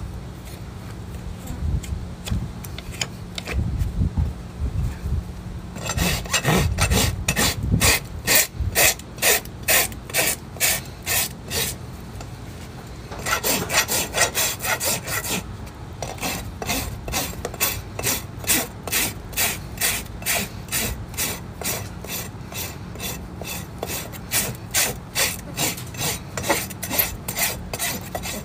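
Farrier's rasp filing a horse's hoof during a trim, in even back-and-forth scraping strokes about two a second. The strokes start about six seconds in, after some low knocking of handling, and pause briefly twice.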